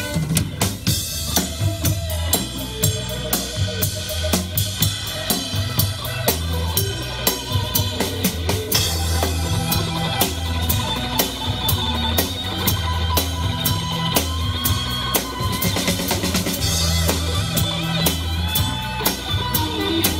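Live band music: a steady drum beat with bass under saxophones and keyboard.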